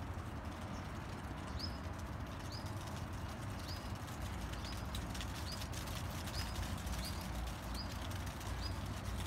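Wind blowing, heard as a steady low rumble with faint crackles. Over it a small bird gives a short, high chirp about once a second, starting about a second and a half in.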